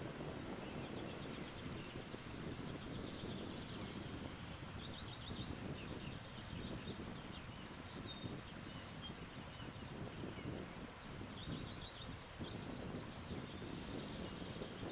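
Wind blowing in a steady, gusting rush, with small birds chirping and singing fast high trills throughout.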